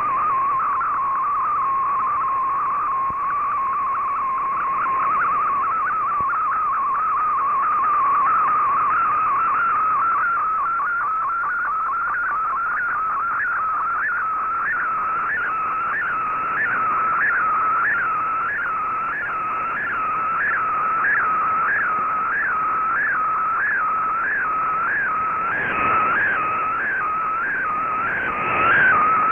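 Shortwave MFSK picture transmission received in AM on an Icom IC-R8600: a steady tone a little above 1 kHz, wavering with a short upward blip that repeats about once a second, over radio hiss, as a colour image is sent line by line.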